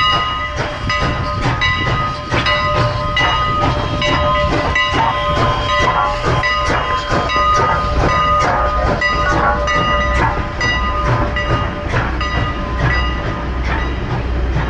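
Steam locomotive and its passenger coaches rolling slowly past at close range, with a low rumble and repeated wheel clicks over the rail joints. A steady ringing tone sounds over it in the first half and fades as the locomotive goes by.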